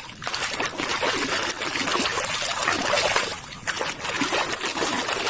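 Water splashing steadily over a muddy plastic toy vehicle as it is washed, with a constant spattering hiss.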